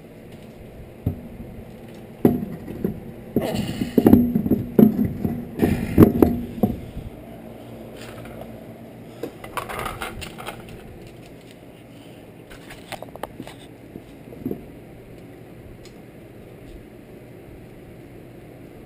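Heavy knocks and clatter of metal parts and a road wheel being handled at a car's front wheel for several seconds, then a few lighter knocks and scrapes as the wheel is hung on the hub studs.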